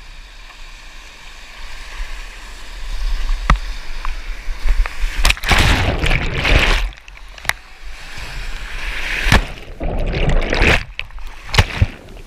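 Whitewater rushing and splashing around a kayak in a river hole, building about two seconds in and surging heavily. The sound goes muffled and cuts in and out as the camera is plunged under the water, with a few sharp knocks.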